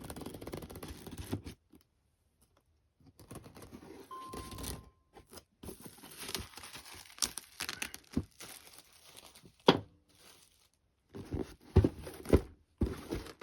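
Plastic bags of model-kit parts crinkling and rustling as they are handled, in several spells with short pauses, with a few sharp clicks or knocks of plastic pieces in the second half.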